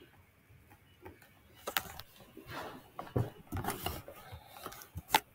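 Irregular clicking and rattling from a computer mouse being scrolled and clicked, ending in one sharp click near the end.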